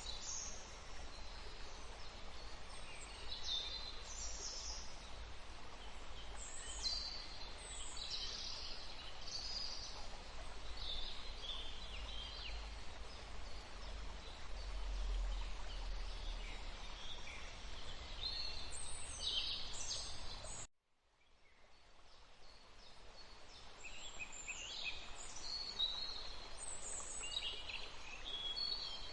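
Forest ambience: many short bird chirps and trills over a steady hiss of running water. About two-thirds of the way through, everything cuts out suddenly, then fades back in with the birds calling again.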